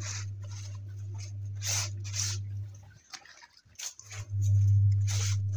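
A hand brush scrubbing a wet, soapy suit jacket, one swishing stroke about twice a second, with a short pause midway. Under it a steady low hum cuts out for about a second midway.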